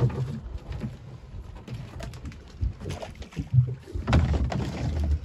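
Irregular knocks and clatter of crab-trap gear on a small open fishing boat as the trap line is hauled in by hand, with a low rumble about four seconds in.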